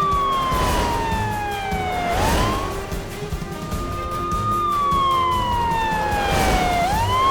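Emergency-vehicle siren wailing in two long cycles over background music. Each cycle holds a high tone, slides down over about two seconds, then sweeps quickly back up.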